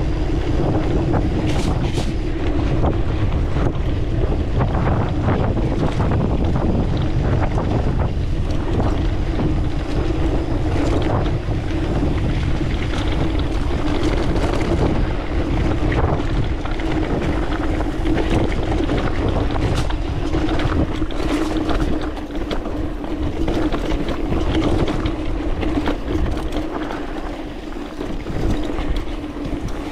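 Wind rushing over the microphone of a mountain bike descending a rough dirt singletrack, with the bike rattling and knocking over the bumps and a steady buzz underneath.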